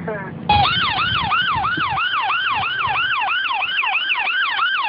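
Ambulance electronic siren switched on about half a second in, sounding a fast yelp: quick rising sweeps, about three a second, repeating evenly.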